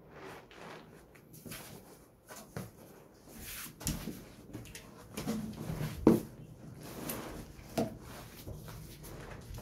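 Heavy cardboard speaker carton and its foam packing being handled: rustling and scraping of cardboard and foam, with dull knocks as the carton is tipped over and turned upside down on the floor. The loudest, sharpest knock comes about six seconds in, another just before eight.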